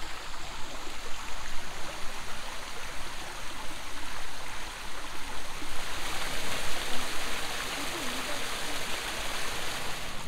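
Water falling and splashing down a small rock waterfall as a steady rushing. It grows louder and brighter about halfway through.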